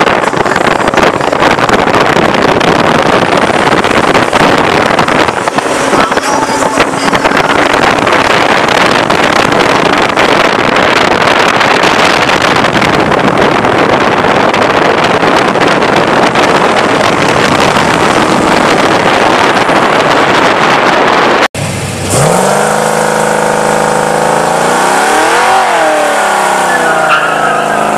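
A car making loud, steady, pitchless engine and tyre noise; after an abrupt cut, a car engine idling, revving up once and dropping back to idle.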